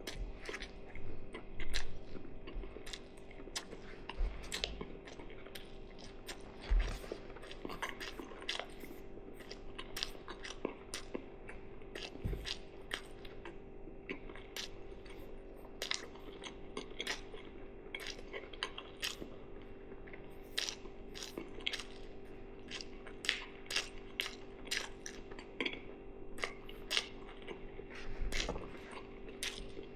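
Close-miked chewing with many small wet mouth clicks, over a steady low hum, with a few low thumps, the loudest about two and seven seconds in.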